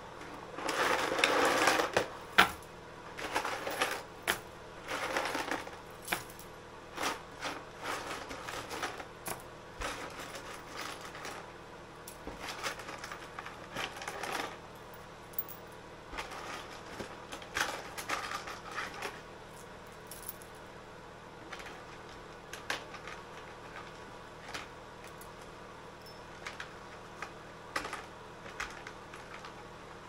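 Small brass plug pins and snippets of copper wire tipped out of a plastic tray onto paper towel on a wooden bench, a loud metallic clatter for the first couple of seconds, then scattered light clinks as the pieces are handled.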